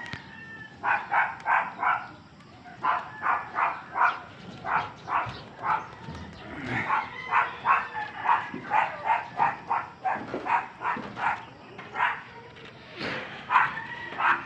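A dog barking in quick runs of short barks, about four a second, starting about a second in and repeating in bouts.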